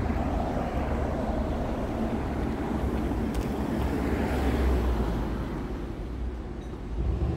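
Road traffic on a town street: cars driving past as a steady rumble that swells as one passes about four to five seconds in.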